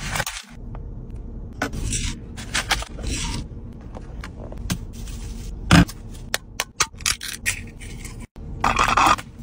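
Close-up scraping and clicking as a straw is worked through a plastic cup lid and into an iced drink can. There is one sharp knock a little before six seconds in, and a longer scraping burst near the end.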